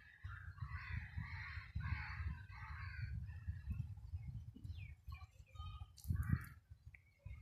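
Birds calling again and again, thickest in the first three seconds and once more about six seconds in, over a steady low rumble.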